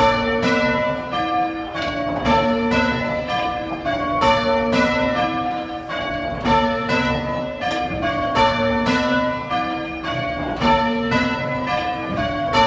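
A ring of church tower bells being rung, the bells striking one after another in an even, unbroken sequence, each note ringing on into the next.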